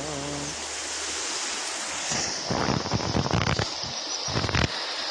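A small river flowing with a steady rush of water. From about two seconds in, a run of louder, irregular knocks and bursts sits over the flow for a couple of seconds.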